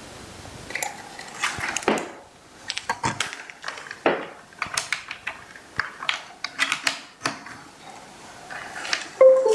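Irregular light clicks, taps and clatter of small hard objects being handled, clustered through most of the stretch, with a brief pitched tone near the end.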